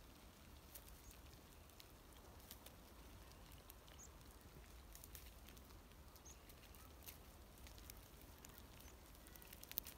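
Near silence: a faint low wind rumble with scattered soft ticks and a few faint, short high chirps.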